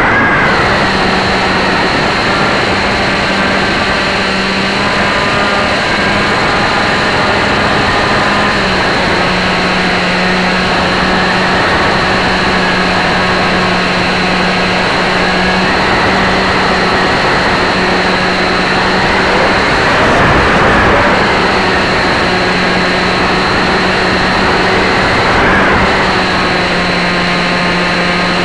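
Electric motor and propeller of an AXN Clouds Fly Floater RC foam plane running steadily in flight, heard up close from a camera taped to the plane's nose. The pitch shifts a little a few times.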